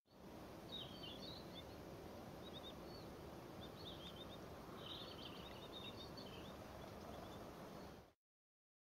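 Small songbirds giving short, high chirping calls in several brief clusters, over a faint steady outdoor background noise.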